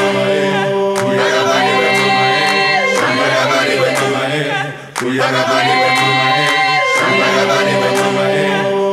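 Choir singing a cappella in held, multi-part chords. The singing briefly fades out just before five seconds in and then resumes.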